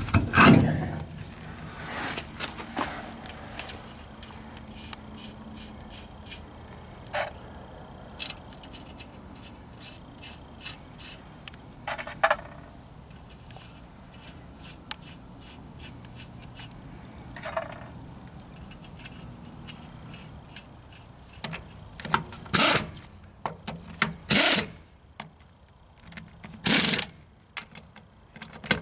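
Tools and parts being handled and put away in a workshop: scattered clicks, clinks and scrapes over a low steady hum, then four short, loud bursts of noise in the last few seconds.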